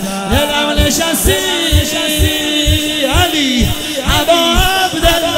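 Persian devotional song: a singer holds long, wavering, ornamented notes over a steady low beat.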